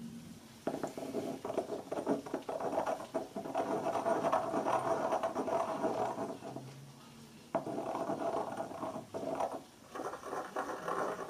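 Blue Saiboku Aya ink stick ground wet on a small glazed ceramic dish: a gritty rubbing with a faint steady tone under it. It comes in three spells, with short pauses about six and nine seconds in.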